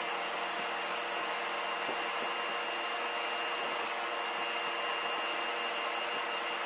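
3D Systems sPro 60 selective laser sintering machine running with a steady whirring hiss and a faint high whine, as its build platform raises the powder part cake out of the chamber.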